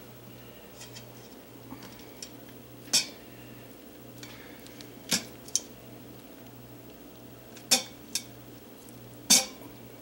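Six or so sharp, irregularly spaced clinks of a plastic slotted spoon knocking against the stainless steel inner pot and wire steamer rack of an Instant Pot pressure cooker as cooked sweet potatoes are lifted out, over a faint steady low hum.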